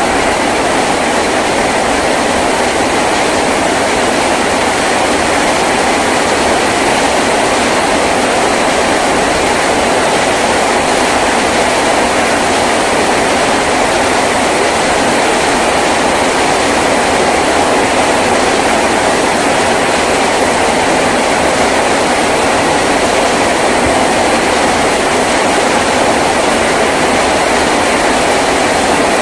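Heavy rain drumming steadily on a tin roof, a dense, unbroken roar of drops with no gaps.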